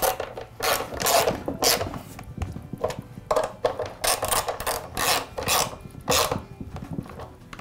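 Ratchet wrench clicking in short, repeated strokes as it tightens the two nuts on the cut-off saw's belt cover.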